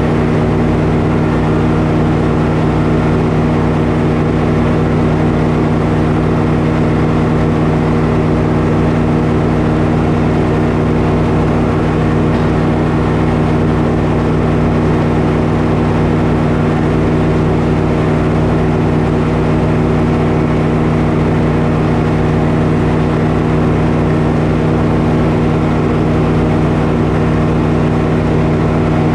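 Frick circular sawmill running steadily at speed, its engine and belt drive turning the big blade free between cuts, with no change in load.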